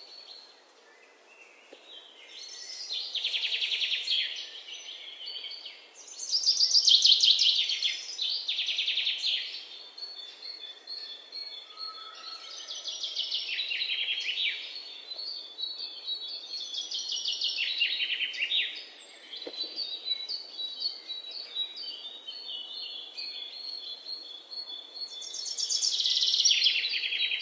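Birds chirping in repeated bursts of rapid trilling, each phrase a second or two long, with a faint steady high note between them.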